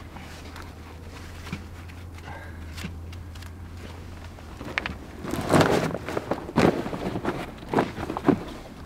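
A large wels catfish being landed at the side of a boat: irregular splashing and knocks in the water by the hull, which begin about halfway through and are loudest over the next three seconds. A low steady hum runs under the first half and stops about halfway.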